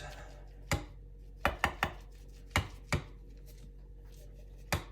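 About seven sharp, irregularly spaced knocks and clicks of a Swiss Army knife being handled against a hard work surface, several close together between about one and two seconds in.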